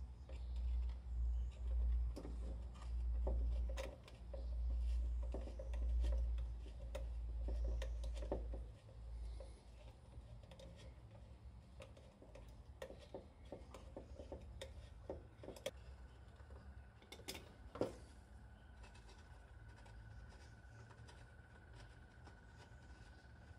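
Small clicks, taps and scrapes of pliers working on a plastic motorcycle headlight housing, with one sharper click a little after the middle. A low rumbling comes in swells during the first nine seconds, and a faint steady high tone runs through the last third.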